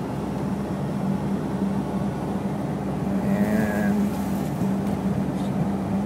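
Car engine and road noise heard from inside the cabin while driving: a steady low hum.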